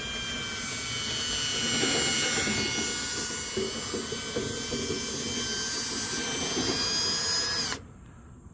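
Power drill spinning a dryer-vent cleaning rod with a whisk head inside the duct, while it breaks up packed lint: a steady motor whine over a busy rattle of the rod and whisk against the duct. The drill stops abruptly near the end.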